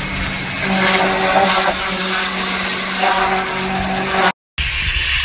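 High-pressure water spray from a pressure washer wand blasting the underside of a tow truck's tray: a steady hiss of spray over the pump's hum, which drops in and out. The sound cuts out briefly near the end.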